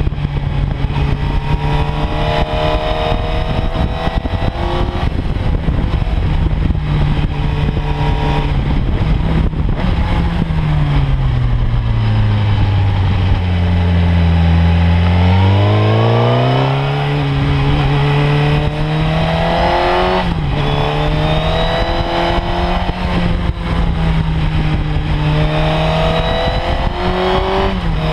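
Sport motorcycle engine heard close up from the bike while riding: running steadily at speed, then falling in pitch as the bike slows for a tight bend about halfway through, and rising again as it accelerates away. There are a few short jumps in pitch along the way.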